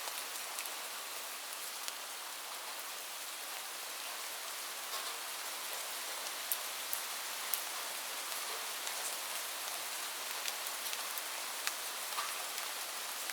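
Steady rain falling, an even hiss with scattered sharp ticks of individual drops landing close by.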